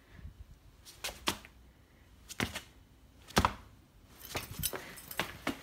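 A Samoyed puppy's claws clicking and tapping on a tiled floor: a few scattered sharp taps, then a quicker run of clicks near the end as it scampers.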